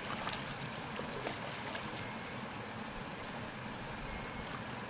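Steady soft hiss of lapping lake water and light wind in the shallows, with a few faint ticks.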